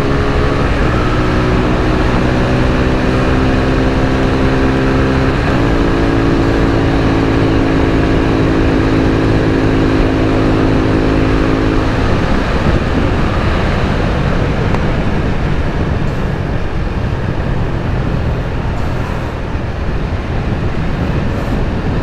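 Suzuki Gixxer 250's single-cylinder engine pulling under throttle, its note rising, dropping with a gear change about five seconds in, then climbing slowly again. About twelve seconds in the engine note fades and a steady rush of wind and road noise takes over.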